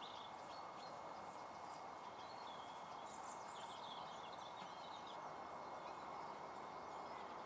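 Faint field ambience: a steady hiss with small birds chirping faintly now and then.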